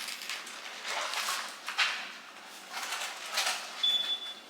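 Kitchen handling noises as a bacon package is opened: a string of short rustles and knocks, with a brief high-pitched tone near the end.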